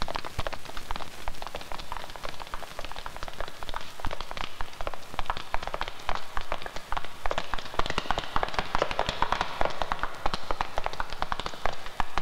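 Footsteps of several people walking together on a hard floor: many quick, overlapping taps.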